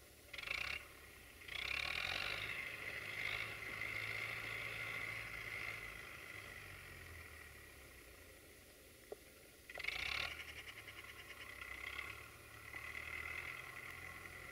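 Diesel engine of a UTB Universal tractor working under load while pulling a plough. Its sound surges abruptly several times and eases between surges.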